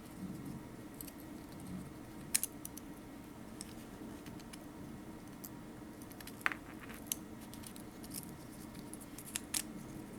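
Small metal parts of a folding knife clicking and tapping as it is taken apart: scattered light clicks, with sharper ones about two, six and a half and nine and a half seconds in, over a low steady hum.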